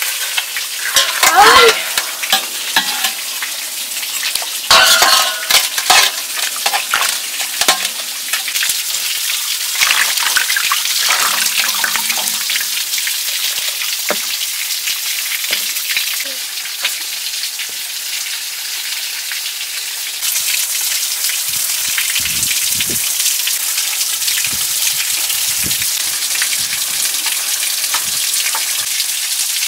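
Steady hiss of food cooking in a hot metal pot, with a metal ladle knocking and scraping against the pot several times in the first half.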